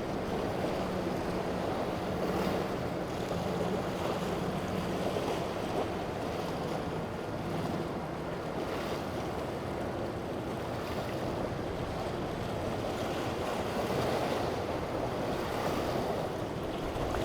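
Steady wind buffeting the microphone over waves and surf at an ocean inlet, with a faint boat engine hum that fades away in the first few seconds.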